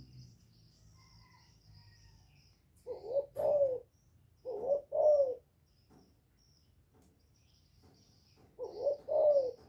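Spotted dove cooing: three two-note phrases a few seconds apart, each a short coo followed by a slightly longer, louder one.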